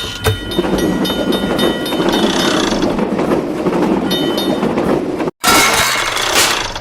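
Train running by, a steady rumble with faint metallic ringing tones over it. About five seconds in it cuts off abruptly and a louder burst of noise follows.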